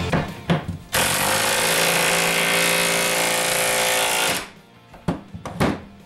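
Milwaukee right-angle impact hammering steadily for about three and a half seconds while running down a vise mounting bolt, then cutting off sharply. A few light clicks follow.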